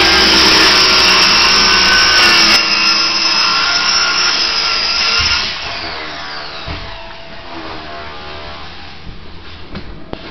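Power saw cutting through layered wooden flooring, loud and whining, then released about halfway through and winding down with falling pitch. Light knocks and scrapes of debris follow near the end.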